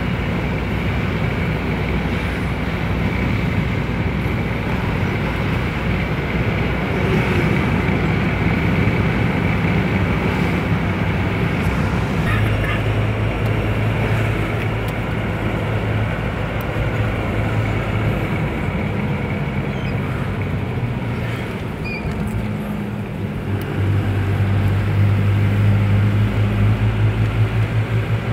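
Engine drone and road noise inside a moving vehicle's cabin: a steady low hum over tyre and wind hiss. The engine note shifts about twelve seconds in and grows louder near the end.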